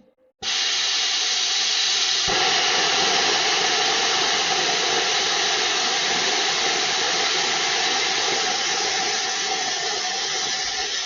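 Plasma cutter running, a loud steady hiss of air and arc that fills out about two seconds in and cuts off suddenly at the end.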